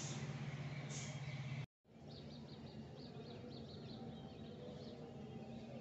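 Faint outdoor ambience of birds chirping over a steady low hum. The sound cuts out completely for a moment about two seconds in, then returns quieter with a quick run of short high chirps.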